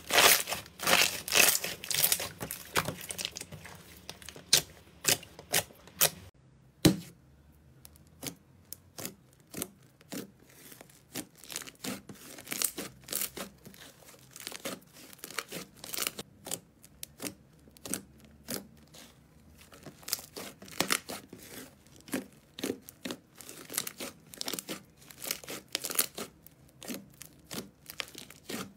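Hands squeezing and kneading slime, making quick sticky pops and crackles. It starts with dense, loud crackling from clear slime being squashed. About seven seconds in, this gives way to softer, scattered pops as a thick opaque slime is pressed and pulled.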